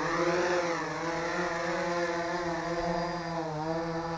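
Wingsland Minivet brushless quadcopter's four motors and propellers whirring as it lifts off and hovers. It is a steady, many-toned buzz whose pitch swells briefly near the start, then holds with small wobbles as the drone steadies.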